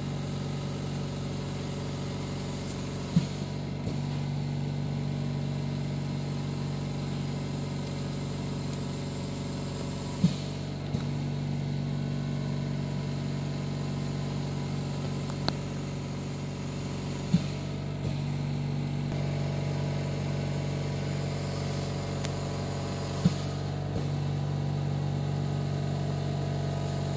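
Steady machine hum with a low, even pitch, broken four times by a sharp click, the hum shifting slightly after each.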